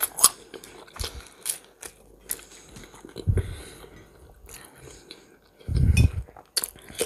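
Close-miked mouth sounds of a person chewing and biting food, with many short wet clicks. Two louder low muffled sounds come about three and six seconds in, the second the loudest.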